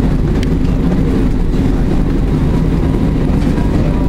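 Steady low rumble of a tram running along its line, heard from inside the car.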